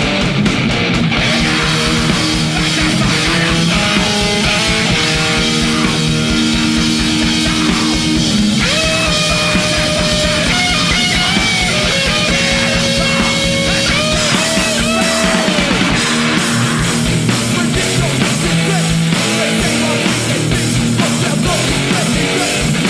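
Loud punk band playing live, with electric guitar, bass guitar and drums. From about eight seconds in, a held, bending note rises above the band for several seconds.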